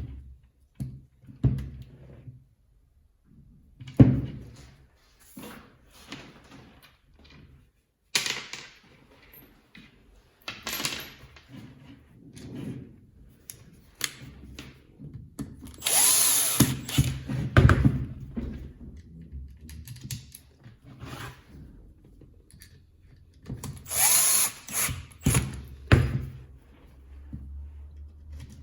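A power tool's electric motor run in short bursts of a second or two, its pitch rising and falling as it spins up and down, three times; between them, knocks and clacks of parts and tools being handled.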